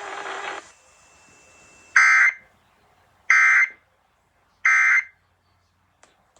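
Emergency Alert System SAME end-of-message data bursts: three short, harsh digital squawks about 1.3 seconds apart, marking the end of a required monthly test broadcast. Heard from a radio stream through a computer's speakers.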